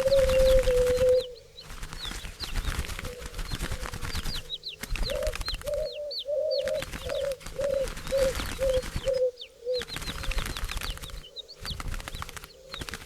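Doves calling: a low coo held for about a second at the start, then a run of short repeated coos in the middle. Quick high chirps of small birds and a fluttering, wing-like rustle run underneath.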